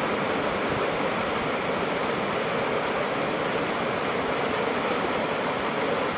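Steady rush of brown floodwater pouring out of the arched culverts of a concrete weir and churning into the river below.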